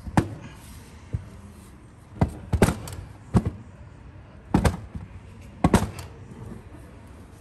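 Irregular sharp knocks and thuds, about nine in all, some in quick pairs, from metal mixer parts knocking in a workshop.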